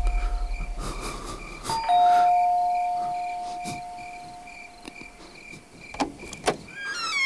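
Electronic two-note doorbell chime, a high-then-low ding-dong: the previous ring dies away and the bell is rung again about two seconds in, fading slowly. Near the end come two sharp clicks and a creak as the door is unlocked and opened, with crickets chirping steadily behind.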